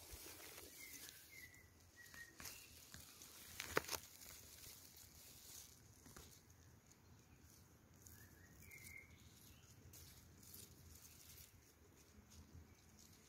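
Near silence: faint rustling of leaves and handling noise, with one sharper click about four seconds in, and a few faint bird chirps in the background, near the start and again about nine seconds in.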